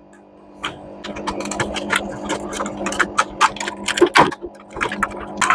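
Plastic wiring-harness connectors being unclipped and pulled from a washing machine's main control board: a quick, irregular run of small plastic clicks and rattles over a faint steady hum.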